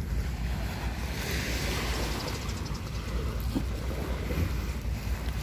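Wind rumbling on the microphone over a steady wash of small waves on the shore.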